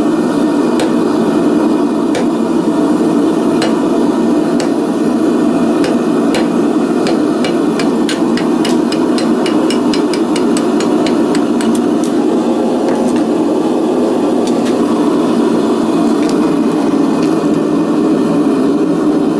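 Hand hammer striking a cutter on hot steel at the anvil to cut a small scribe off the bar. A few scattered blows, then a quick even run of about four to five blows a second for several seconds, then a few more, all over the steady roar of the forge.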